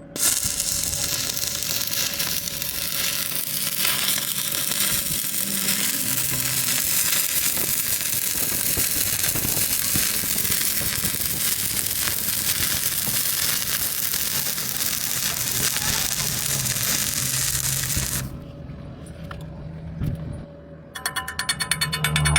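Electric arc welding: a steady crackling sizzle that starts abruptly and cuts off after about eighteen seconds. A rapid, even rattle starts near the end.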